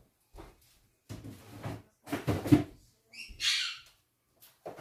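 African grey parrot giving a few short, harsh squawks, then a whistled call with a bending pitch about three seconds in.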